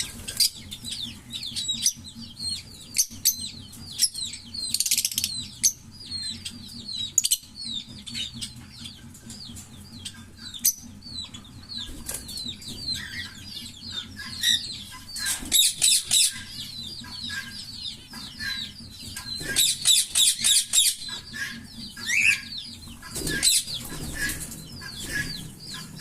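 A pair of green Fischer's lovebirds chirping rapidly and without pause in high-pitched chatter. Several times the chirps crowd into dense runs of fast twittering, the 'giggle' song, the longest around the middle and near the end.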